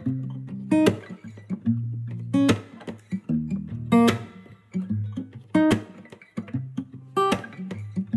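Music: a strummed acoustic guitar over sustained low notes, with a sharp accented stroke about every second and a half.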